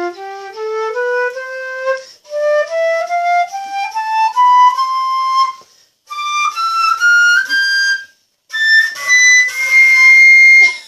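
Flute playing rising scales in separate runs, each run climbing higher than the last, with short breaks between them. It ends on a long, loud, high note near the end.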